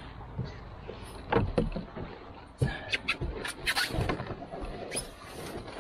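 Irregular knocks, bumps and scrapes as a person climbs into a loaded 16-foot Royalex Prospector open canoe and kneels down, the hull knocking and scraping under his weight.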